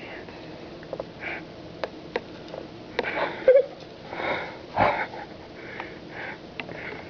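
Pet bird busy in its cage with a stuffed toy: a scatter of sharp clicks and taps and short breathy noises, with one brief squeak about three and a half seconds in.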